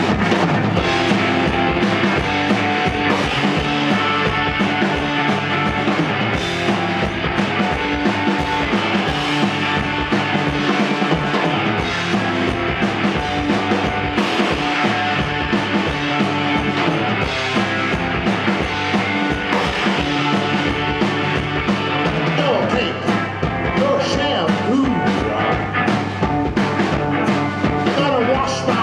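Rock band playing live, with electric guitar and a drum kit keeping a steady beat; no singing.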